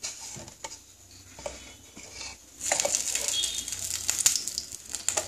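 Mustard oil being poured from a jar into a non-stick kadai, a steady pouring noise starting about halfway in, after a few light clicks and knocks of the jar being handled.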